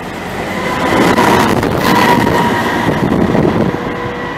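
DB Cargo Class 66 diesel-electric locomotive, with its two-stroke EMD V12 engine, running through the station at close range. The engine and the wheels on the rails swell loudest about a second in and then ease off, with a steady high tone running through the sound.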